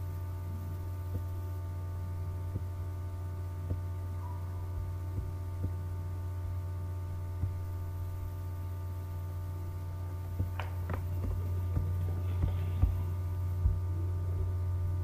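Steady low electrical hum with a stack of steady overtones, broken by scattered faint clicks from a computer mouse.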